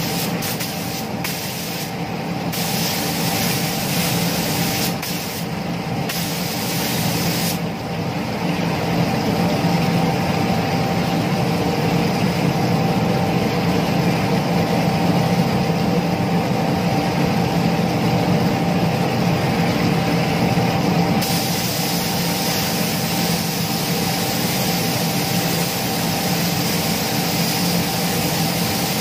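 Gravity-feed compressed-air paint spray gun hissing steadily as it sprays a second coat onto motorcycle body panels, over a constant machine hum. The spray hiss is fuller through the middle stretch, easing about two-thirds of the way through.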